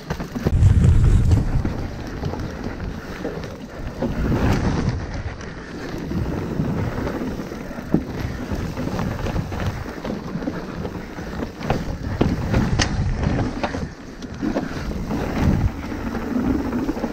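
A mountain bike being ridden down a rough trail: wind rumbling on the microphone over steady tyre and trail noise, with a few sharp knocks and rattles from the bike.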